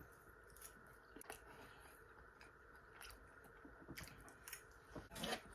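Faint chewing of a bite of steak, with scattered soft, wet mouth clicks at irregular moments.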